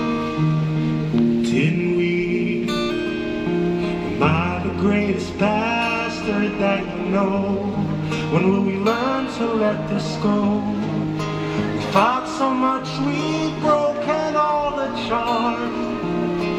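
A singer with guitar accompaniment: held, strummed chords, with the singing voice coming in about four seconds in.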